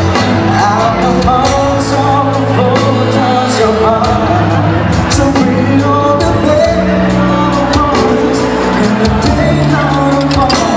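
Music with a singer and band, with a steady beat of sharp percussion hits.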